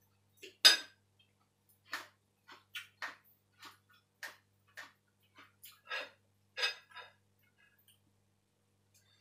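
Kitchen utensils and dishes clinking and clicking, about a dozen short irregular knocks over several seconds, the first one the loudest.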